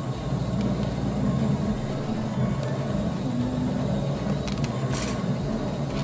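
Steady low hum with a few light clicks about four and a half and five seconds in, as a semi-rimless eyeglass frame and fitting tools are handled.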